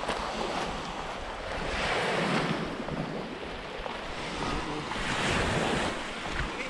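Baltic Sea waves washing onto the shore, surging twice, with wind buffeting the microphone.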